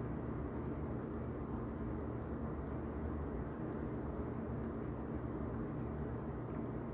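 Steady low background hum, with no distinct clicks or other events.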